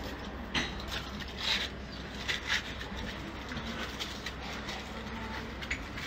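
A low steady hum with a few brief, soft rustling and handling noises.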